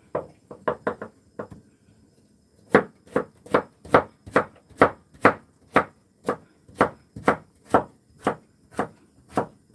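Kitchen knife chopping a firm Korean radish on a wooden cutting board: a few light cuts at first, then from about three seconds in a steady rhythm of about two knife strikes a second against the board.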